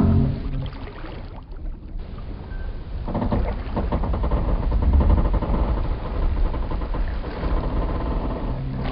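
Wooden boat and pier timbers creaking and groaning, with a long, drawn-out creak starting about three seconds in after a brief lull, over a low rumble of water sloshing against the hulls and pilings.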